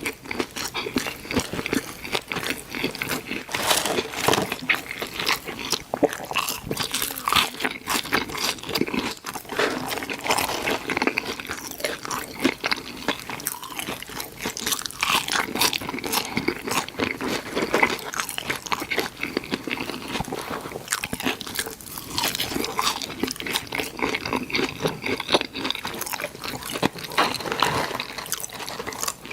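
Close-miked mouth sounds of a person eating fast food: biting and chewing with dense, irregular crunching and crackling.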